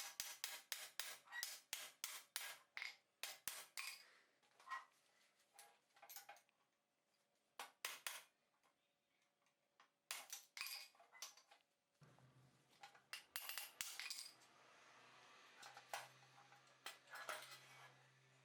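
Small metal clicks and clinks of hand tools working on motorcycle parts, at first in a quick run of about three or four a second, then scattered. A low steady hum comes in about twelve seconds in.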